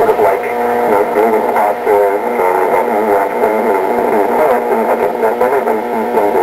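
An AM broadcast station received on a 1925 Oriole Model 7B battery radio and played through its Peerless loudspeaker. The sound is thin and midrange-only, with shifting pitched voices or tones.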